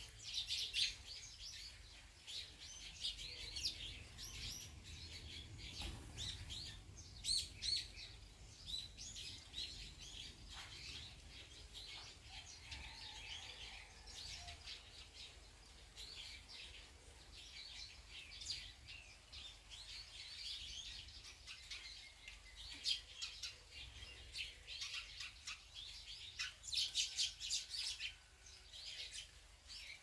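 Eurasian tree sparrows chirping at a seed feeder: many short, high chirps in quick clusters, overlapping and continuous.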